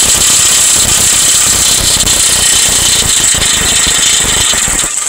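Impact wrench with a 36 mm axle socket hammering without a break on a BMW E70 X5 axle nut. The nut is stubborn and slow to come loose.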